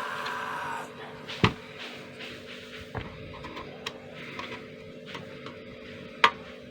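Sharp plastic clicks and snaps, a second or more apart, as the clips of a laptop's plastic case are pried loose; the loudest snap comes near the end.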